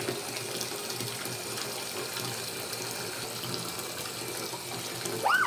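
Bathtub tap running, water pouring steadily into a tub of foamy bath water. In the last half-second a voice starts, rising in pitch.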